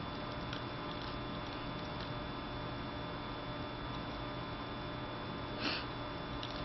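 Steady electrical mains hum with a few faint ticks, and a short sniff about five and a half seconds in.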